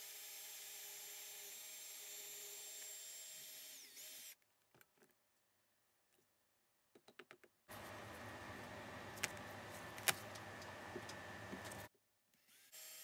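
Electric drill boring into a metal bar, its motor whining steadily, then slowing and stopping about four seconds in. A few light clicks follow as the metal chips are handled. The drill then runs again through most of the second half with a couple of sharp ticks and starts once more just before the end.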